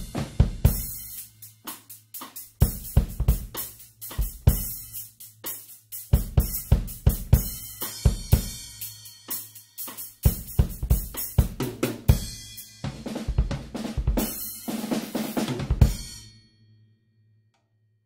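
Drum kit played with Centent Whisper Series reduced-volume cymbals, the perforated kind with many small holes (14-inch hi-hats, 16- and 18-inch crashes, 20-inch ride): a busy groove of kick drum, snare and cymbals that stops near the end, the last cymbal ringing out briefly.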